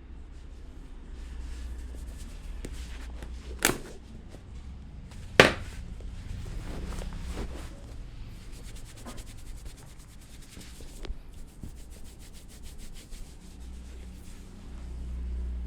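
Hands rubbing over skin and hair in a massage, with two sharp snaps about four and five and a half seconds in, the second the loudest. A fast, even run of light clicks follows through the second half.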